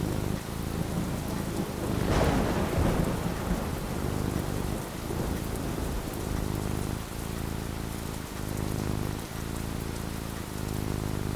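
Steady heavy rain under a low rolling rumble of thunder, with a louder thunderclap swelling about two seconds in and rumbling away over the next couple of seconds.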